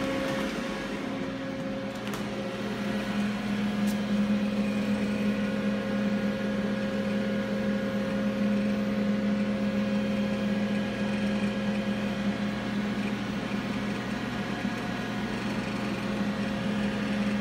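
Steady electrical and mechanical hum of a powered-up Hwacheon Hi-Eco 31A CNC lathe, heard from its open electrical cabinet. It is a low drone with several held tones that grows a little louder a few seconds in, with a faint click about four seconds in.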